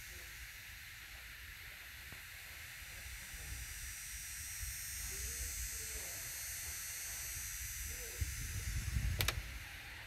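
Gentle surf washing on a beach, a steady hiss, with wind rumbling on the microphone that grows stronger about eight seconds in. A sharp click just after nine seconds.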